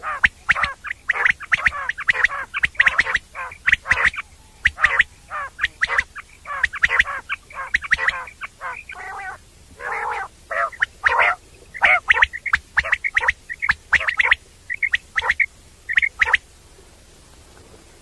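Common quail calling: a long run of short, chattering calls in quick, uneven succession, stopping near the end.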